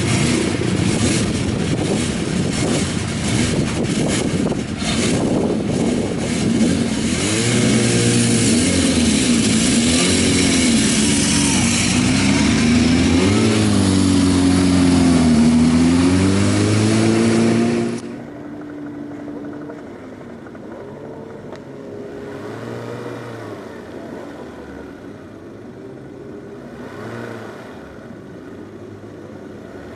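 Racing motorcycle engine at speed, its pitch rising and falling as it revs through the gears, with heavy rushing noise over it. About 18 seconds in the sound cuts off abruptly, and a quieter engine running with slow rises and falls takes over.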